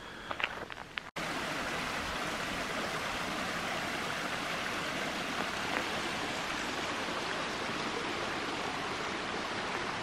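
Footsteps on a path for about a second, then a sudden cut to the steady rushing of a small forest brook running over rocks.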